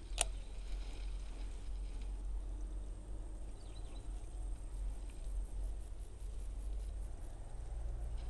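Insects chirping in a fast, even pulse that sets in about halfway through, over a low wind rumble on the microphone. A single sharp click comes just after the start.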